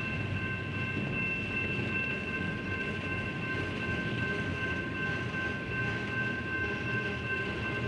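Double-stack intermodal train's container well cars rolling past with a steady rumble and clatter of wheels on rail. Several steady high-pitched ringing tones hold over it without a break.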